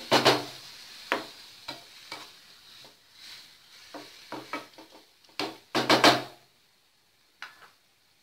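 A wooden spatula scraping and knocking against a nonstick frying pan, stirring flattened rice (aval) cooking in water, with a faint sizzle over the first few seconds. The stirring stops about six and a half seconds in.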